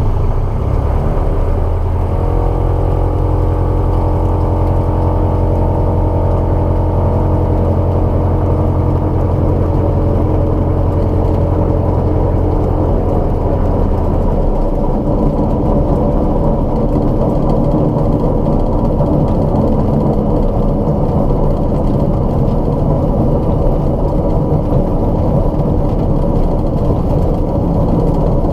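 Light aircraft's piston engine running steadily while taxiing on the ground, with a strong low hum for about the first half that then drops away as the engine note changes. This is the taxi that brings a metal grinding sound and vibration, which the owner suspects come from low oleo pressure in the main landing gear.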